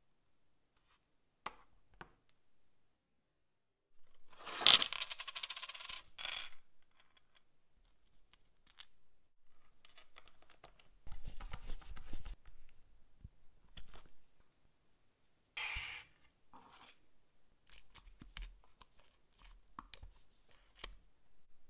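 Clinks, taps and scrapes of small hard objects being handled. A longer rattling burst comes about four seconds in, another burst near the middle, and scattered clicks follow.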